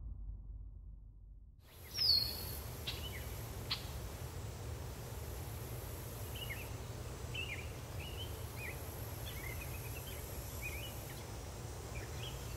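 Outdoor field ambience starting about two seconds in: a steady low rumble with small birds chirping in short, repeated calls.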